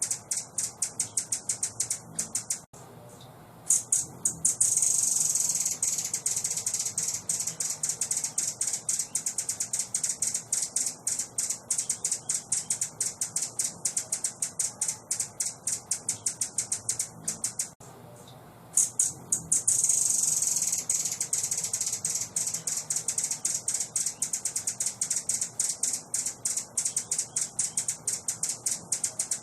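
A small songbird's rapid, high-pitched chattering, many sharp notes a second, breaking off briefly about three seconds in and again near eighteen seconds, then resuming in a denser run. The same stretch repeats as a loop.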